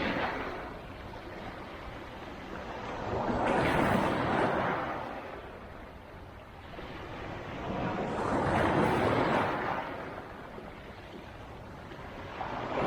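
Black Sea waves breaking on the shore: two waves surge and fall away, with a quieter wash between them, and a third begins to break near the end.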